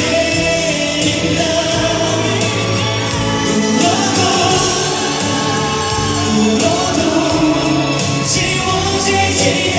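A pop song performed live: a male singer sings into a microphone over the backing music, played loud through an arena's sound system.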